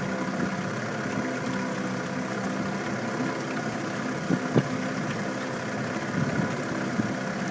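Small boat's outboard motor running steadily, with an even mechanical hum. There are two short knocks about four and a half seconds in.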